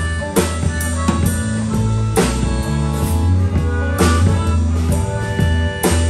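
Live rock band playing an instrumental break: drum kit with accented hits about every two seconds, electric bass, and electric guitars, with a harmonica played into the vocal microphone.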